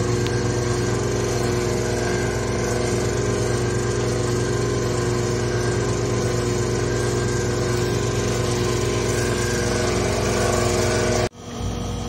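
Newly fitted hermetic refrigerator compressor running steadily just after switch-on while being charged with refrigerant: a continuous, even motor hum with several steady tones. It cuts off abruptly near the end.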